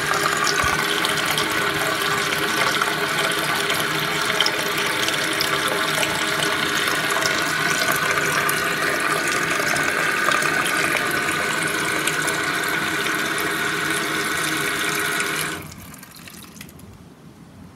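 Armitage Shanks Kensington toilet cistern refilling: water hisses steadily through the fill valve with a steady whistling tone, until the valve shuts off suddenly about 15 seconds in.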